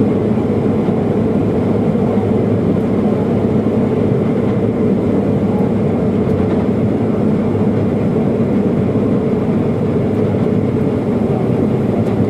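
Case IH Axial-Flow combine running steadily while its unloading auger discharges oilseed rape into a grain trailer alongside: a loud, even mechanical drone with a constant hum.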